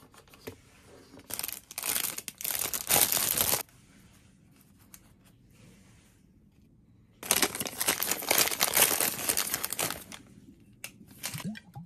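Food wrapping crinkling and rustling in two bouts of two to three seconds each. The second bout comes as a crispy fried chicken cutlet is taken out of its paper sleeve.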